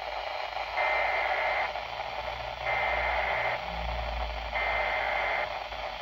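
Midland weather radio's speaker playing three bursts of emergency-alert (SAME) header data tones, each just under a second long and about a second apart, over steady radio static. The radio decodes the header but shows it as an unrecognized message.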